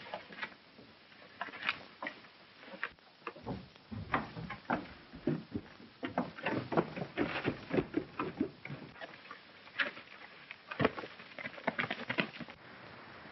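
Hurried, irregular footsteps and knocks on wooden floor and steps as people run out a door and down a stairway, the thuds bunching up in the second half.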